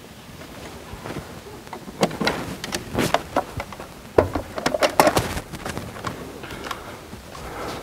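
A portable bill-counting machine being handled and set down on a table: a run of scattered knocks and clunks, the sharpest about four seconds in.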